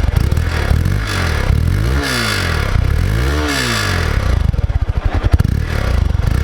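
Hero XPulse 200's single-cylinder engine and exhaust running, blipped twice about two and three and a half seconds in, the revs rising and falling each time and climbing higher the second time. It then settles back to an uneven, lumpy idle.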